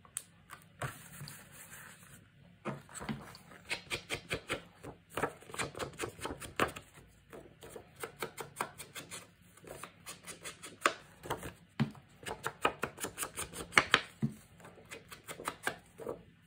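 Rapid dabbing and tapping of a foam ink blending tool on an ink pad and on card, a quick run of short sharp taps that starts a few seconds in and keeps up at several a second.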